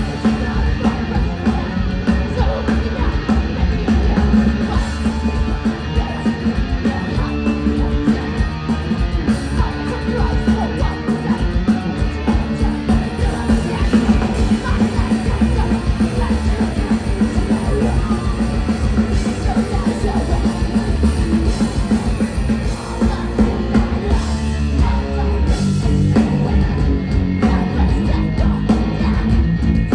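A live heavy rock band playing loud, with drums, distorted guitars and bass, and yelled vocals.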